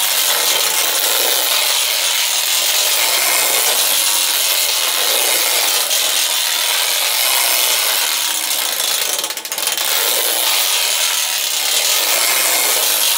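Clockwork tinplate toy train running round its tin track: a continuous whirring rattle of the wound spring motor and metal wheels on the tinplate, with a brief dip about nine and a half seconds in.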